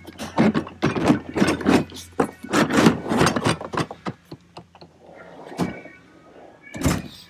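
Metal tools and toolbox drawer hardware clattering and knocking as a drawer of a Matco roll-cab toolbox is handled. A quick run of clanks lasts about four seconds, then come two sharper knocks near the end, the last like a drawer shutting.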